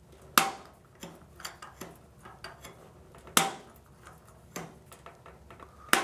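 Clicks and small knocks from a hand turning the pressure safety valve on a Furrion tankless water heater counterclockwise, testing the valve. Two louder clicks stand out, about half a second in and past the three-second mark, with fainter ticks between.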